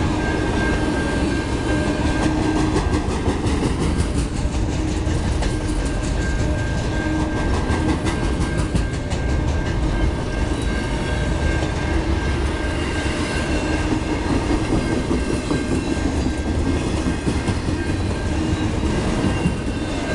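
Freight train of autorack cars rolling past: a steady heavy rumble of steel wheels on rail, with a run of rapid clicking from the wheels in the first half and a faint steady whine.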